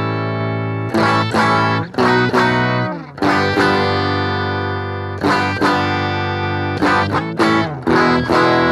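Telecaster on its bridge pickup strumming chords in a clean tone through a Boss GT-1000 amp modeler, each chord ringing out before the next strum. Within the first few seconds the GT-1000's stereo compressor is switched on, which makes the tone a touch thicker and fatter without making it louder.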